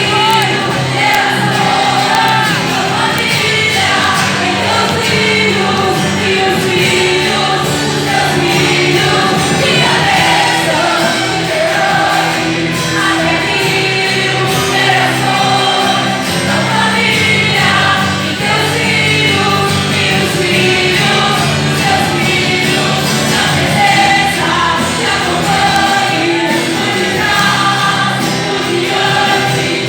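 A choir singing a gospel song with instrumental backing, loud and steady throughout.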